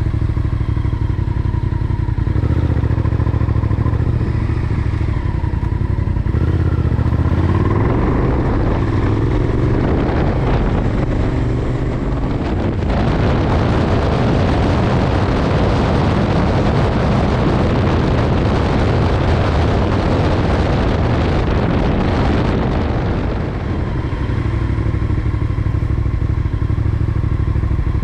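Honda VTR1000F's 90-degree V-twin engine running under a rider on the move: a steady low note that rises in pitch as the bike accelerates about a third of the way in, then a broad rush of wind and road noise through the middle, settling back to a steady low engine note near the end.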